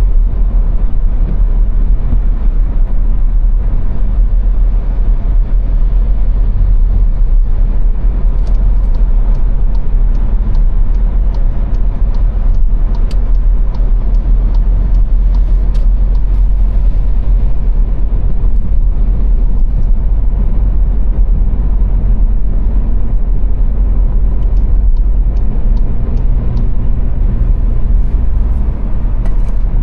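Car driving at motorway speed: a steady, deep rumble of tyre, engine and wind noise.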